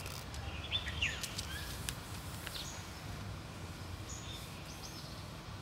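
Birds chirping a few short times, with quick falling and rising chirps, over a steady low rumble of outdoor background noise.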